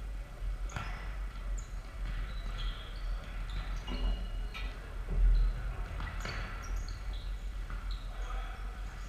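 Futsal players' shoes squeaking on a wooden sports-hall floor in many short, high chirps. The ball is kicked sharply about a second in and again about six seconds in, over a steady low hum.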